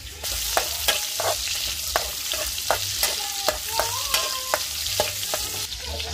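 Pieces of meat frying in hot oil in a wok, sizzling steadily, while a metal spatula stirs them with sharp scrapes and clicks against the pan about twice a second. The sizzling stops near the end.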